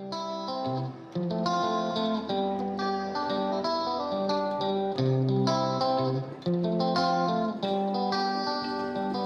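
Background music led by a plucked guitar, a run of picked notes over a steady pulse.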